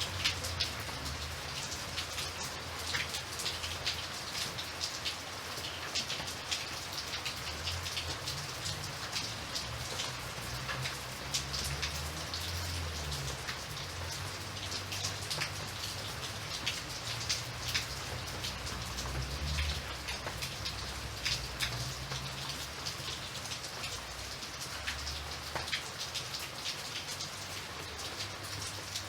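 Steady rain with many individual drops pattering on a surface, over a low, uneven rumble.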